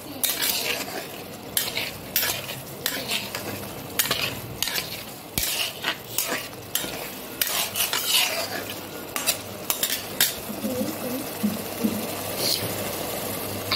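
Metal spatula scraping and knocking against a pot as prawns are stirred and fried down in a thick spice masala, over a steady sizzle of the frying. The scrapes come irregularly and grow sparser near the end.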